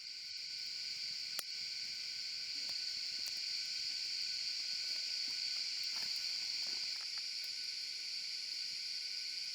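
Rainforest insects droning steadily, several high pitches held together without a break, with a few faint ticks.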